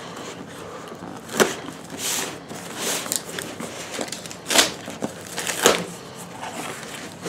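Cardboard shipping box being cut open: a metal tool slitting the packing tape and the plastic packing-slip pouch, with rustling paper and tearing cardboard. Several short, sharp rips stand out, spread through, the strongest about a second and a half in and again around four and a half and five and a half seconds in.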